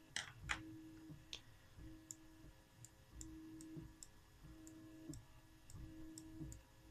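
Faint 3D printer stepper motors: a low steady tone that starts and stops in short moves about every second and a half. A few sharp clicks come near the start, and fainter ticks follow through the rest.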